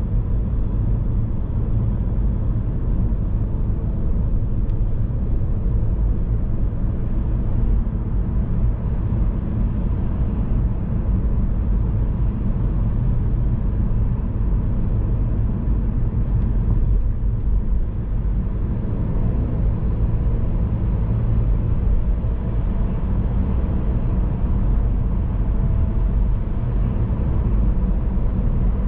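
A car driving at a steady pace, a constant deep rumble of road and engine noise that does not change.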